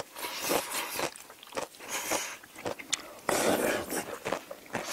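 Chewing and biting sounds, then about three seconds in a long, loud slurp of jjajangmyeon noodles in black bean sauce.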